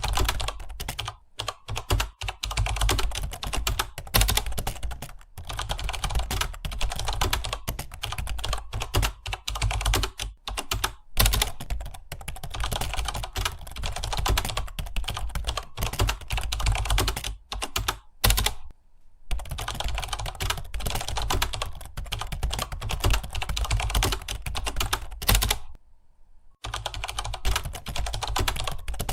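Computer keyboard being typed on quickly and continuously, a dense clatter of key clicks that stops briefly twice, once for about a second and once for about a second and a half.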